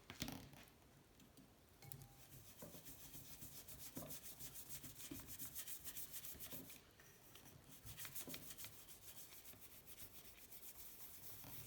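Faint quick rubbing strokes in two spells with a short pause near the middle, and a light knock right at the start. No power tool is running.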